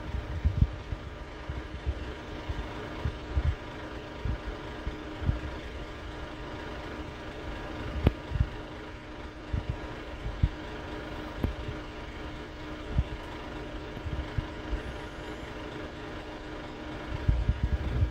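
Renault R312 city bus's diesel engine running, heard from inside the passenger cabin as a steady hum with a faint held tone, overlaid by scattered low thumps and knocks and a sharp click about eight seconds in.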